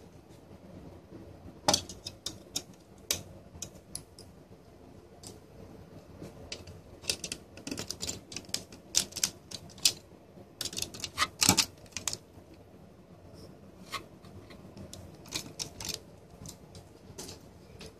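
Small precision screwdriver clicking and ticking against the screws and metal case of a network switch as it is taken apart. The clicks come irregularly, a few at first, then in quick clusters around the middle, with a few more near the end.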